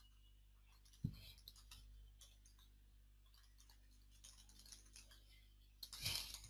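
Faint computer keyboard typing, scattered key clicks as an account name and password are entered, with a short louder noise near the end.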